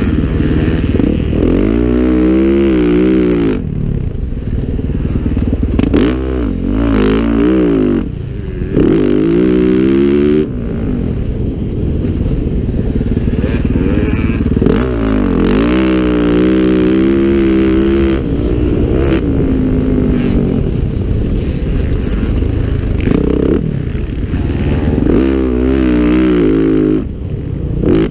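Motocross dirt bike engine heard close from an on-board camera, its revs climbing and falling again and again, with brief drops where the throttle is shut off.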